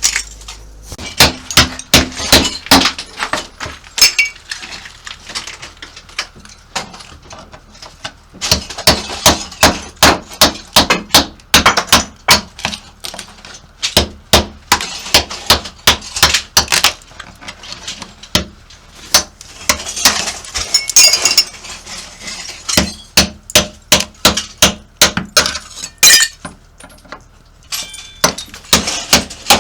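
Hammer blows on a carbide-tipped cold chisel chipping ceramic bathroom tiles off a wall, the tile pieces cracking and clinking as they break away. The strikes come in quick runs of several a second, with short pauses between runs.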